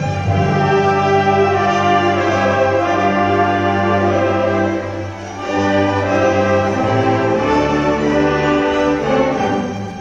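Orchestra and wind ensemble playing together in sustained chords, the brass prominent; the music dips briefly about five seconds in and swells back.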